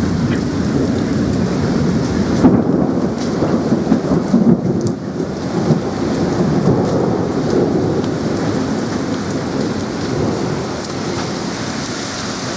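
Heavy rain with hail pelting down on the lawn and concrete path, a dense, steady downpour with a deep rumble under it.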